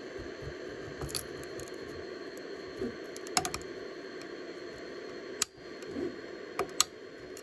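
A few sharp clicks and knocks of hands working a finished 3D print off the printer's bed, over a steady hum.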